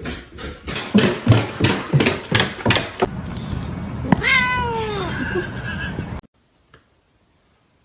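A cat gives one long meow, about four seconds in, that falls steadily in pitch, after a quick run of sharp knocks. The sound cuts off suddenly at about six seconds.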